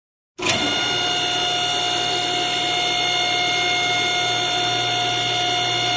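Automatic car wash machinery running: a steady motorized whir with a high whine, cutting in suddenly about half a second in.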